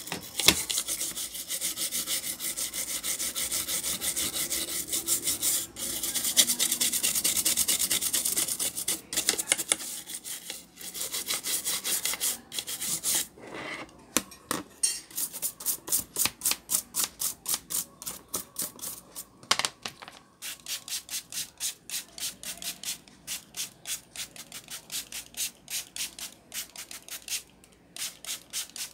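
Toothbrush bristles scrubbing a graphics card's circuit board, cleaning off corrosion. Fast, continuous back-and-forth scrubbing for the first several seconds, then slower, separate strokes through the rest.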